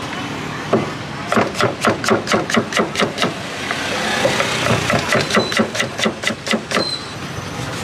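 Rapid metallic chopping strikes, about five a second, in two runs with a short break in the middle, over a steady hum of street noise.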